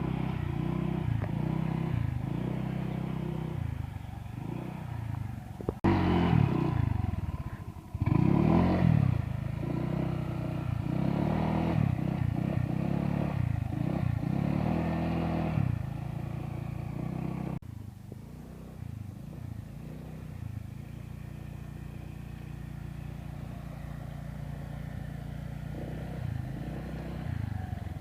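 Motorcycle engine revving up and down over and over as it is ridden, with sudden changes in level about 6 and 18 seconds in.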